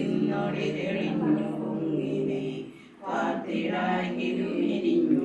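Several voices chanting a prayer together in unison, on held, sung pitches, in two long phrases with a short pause about three seconds in.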